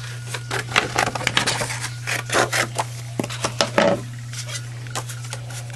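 Hard plastic clicking and scraping as die-cutting plates and mats are handled and set on a die-cutting and embossing machine. The clicks come in a busy run for the first four seconds, then a few stray clicks.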